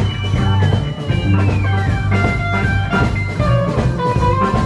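Live honky-tonk country band: an electric guitar plays a lead with bent notes, including a long bend sliding down in the first two seconds, over upright bass and drums.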